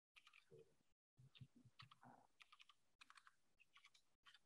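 Faint computer keyboard typing: a scattering of soft key clicks as a short text label is typed in.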